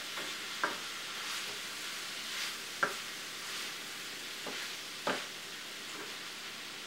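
Spinach and ground meat sizzling gently in a skillet on low heat while a red plastic slotted spatula stirs and scrapes them, knocking against the pan a few times. The spinach is wilting.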